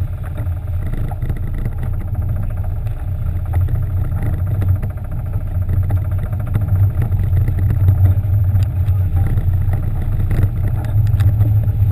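Sportfishing boat's engines running with a steady low drone, with a few short knocks or clatters in the last few seconds.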